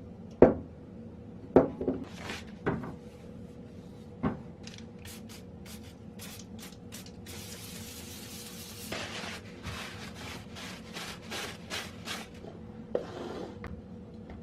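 A few sharp knocks of parts being handled, then a run of short hissing strokes, about two a second, with one longer hiss of about two seconds in the middle, over a faint steady hum.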